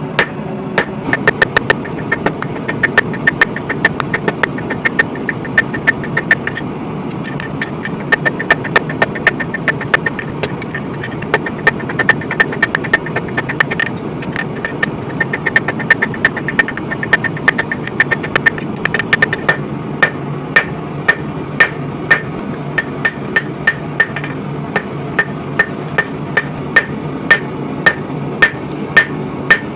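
Hand hammer striking hot coil-spring steel on an anvil to draw out a sword tang: steady blows about two a second, each with a bright ring, with a couple of brief pauses. Under them runs the steady roar of the propane forge.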